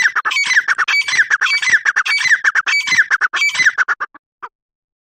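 Grey francolin giving its loud repeated call: a fast run of falling notes in phrases a little under twice a second, stopping about four seconds in, with one short note after.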